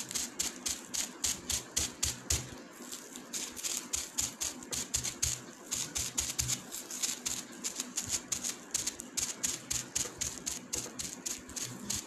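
Quick, rhythmic dabbing of a wad of crumpled bubble wrap loaded with wet paint onto paper lying on a wooden table, about four light crinkly taps a second, with a short pause about three seconds in.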